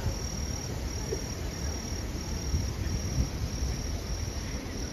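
An insect, likely a cricket, chirping in a steady high-pitched pulse, about three chirps every two seconds, over a steady low rumble.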